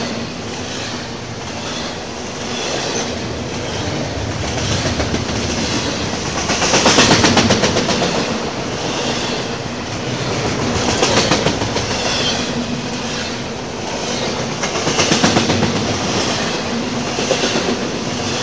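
CSX double-stack intermodal freight train of loaded container well cars rolling past close by: a steady rumble with wheels clattering over the rails, swelling louder every few seconds.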